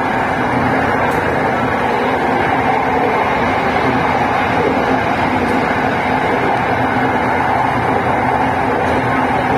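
SRT Red Line electric commuter train (Hitachi AT100) running: a steady hum and rolling noise heard from inside the carriage.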